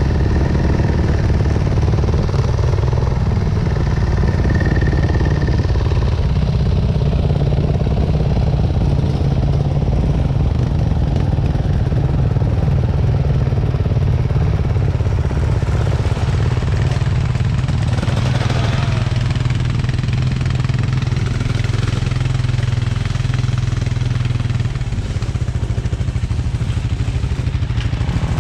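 A motorcycle engine running steadily at an even pitch, with no revving.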